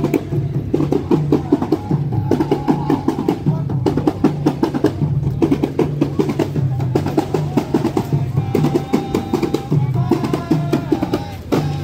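Lively music led by fast, dense drumming, with a melody of short held notes over it.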